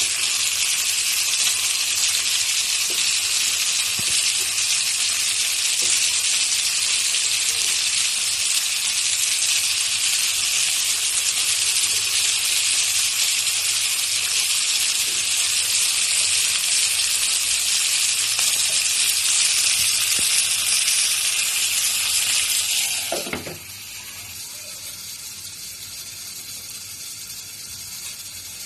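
Halved tomatoes and garlic sizzling in hot oil in a covered frying pan: a steady hiss that drops to a much fainter sizzle about three-quarters of the way through.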